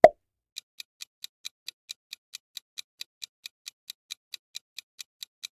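A short pop as the last answer choice appears, then a quiz countdown timer's clock-like ticking, about four or five ticks a second.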